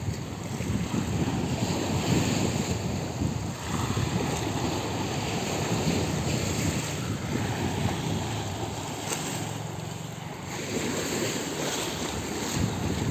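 Sea waves washing against a sloping concrete seawall, with wind buffeting the microphone in an uneven low rumble.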